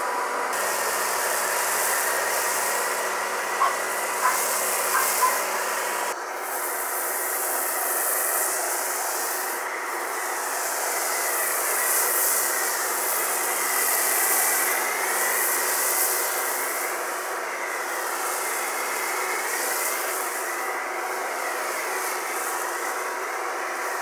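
Pressure washer spraying water and foam over a car's paint: a steady hiss of the spray over the even hum of the washer's motor. There are a few light knocks a few seconds in, and the sound changes abruptly about six seconds in.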